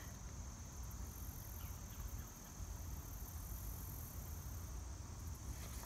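Outdoor ambience: a steady, high-pitched insect drone with a low rumble of wind underneath.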